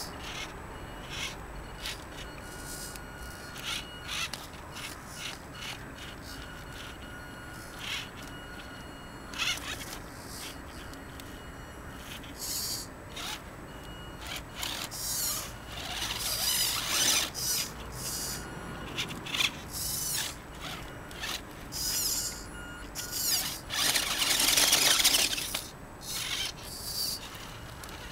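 Small electric RC rock crawler (WLToys 18428) driving in short throttle bursts: its motor and gearbox whine up and cut out again and again. The bursts come more often and louder in the second half, with one long run near the end.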